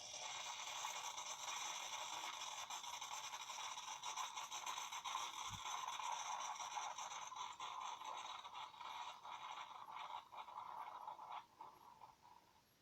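Tassimo Happy pod coffee maker brewing through the coffee pod: a steady hiss with fine crackling and sputtering that stops about a second before the end.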